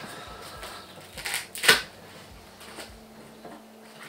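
Short handling sounds of shadow foam and steel spanners: a brief rustle and then a sharp click a little under two seconds in, with faint scraping otherwise, as cut foam strips are pulled out and spanners are pressed into the slots.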